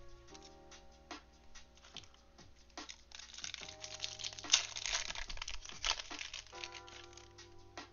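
Plastic wrapper of a Topps Finest trading-card pack being worked open by hand and crinkling. The crinkling is thickest and loudest in the middle few seconds.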